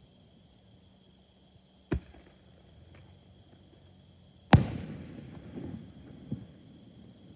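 Fireworks going off: a sharp bang about two seconds in, then a much louder bang a couple of seconds later that rolls away in a long echo with a few smaller cracks. Insects keep up a steady high trill throughout.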